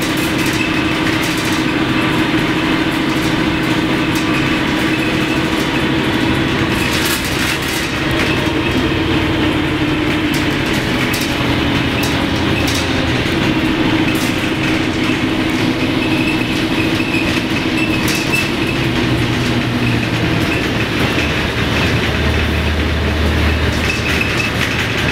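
Inside a LiAZ-677M bus on the move: steady engine and road rumble with a drone that drifts in pitch, and scattered clicks and rattles from the body. A deeper rumble comes in near the end.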